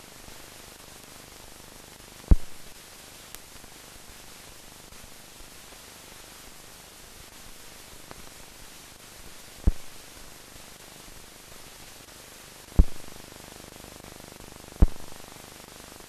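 Steady hiss of a silent film's blank soundtrack, broken by four sharp pops spread through it, each dying away quickly.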